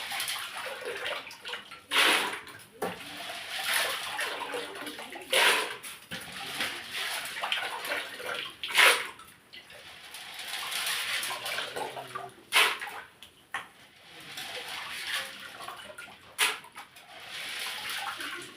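Water splashing and sloshing in uneven surges, with several sharper loud splashes.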